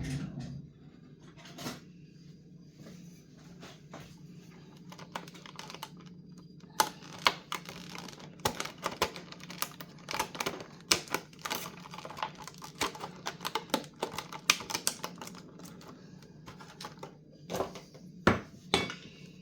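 Rapid, irregular clicks and light clatter of small hard plastic parts being handled, busiest in the middle stretch, over a steady low hum.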